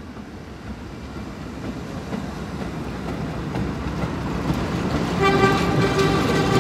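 Subway train running through the station, its rumble growing steadily louder, then a train horn sounding about five seconds in and holding.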